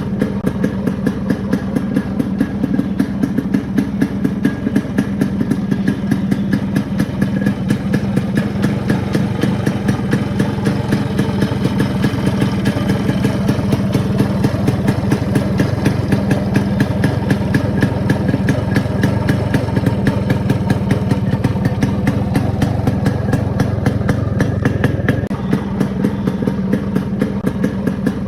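Yamaha RX100's two-stroke single-cylinder engine idling steadily, with a fast, even firing beat. The low rumble eases slightly about 25 seconds in.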